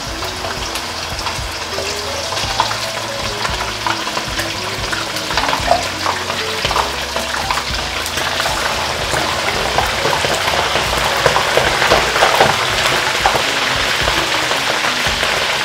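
Chunks of cod frying in hot sunflower oil, a steady sizzling and crackling that grows louder in the second half as more pieces go into the pan.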